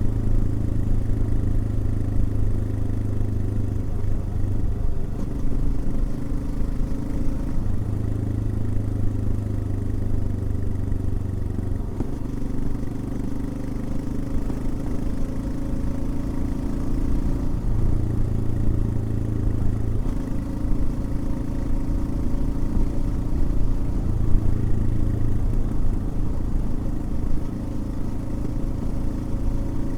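Royal Enfield Himalayan's single-cylinder engine running steadily on the move, its note shifting every few seconds as throttle and load change.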